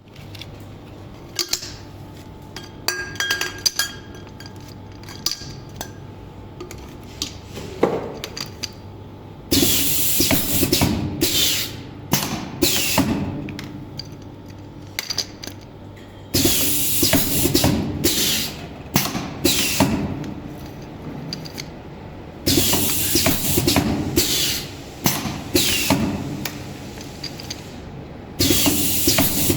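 Semi-automatic BOV aerosol filling machine filling cans with cooking oil. At first there are light clicks and clinks, then it runs in repeated cycles about every six seconds, each starting abruptly with a loud rush of noise and clanks and then dying away.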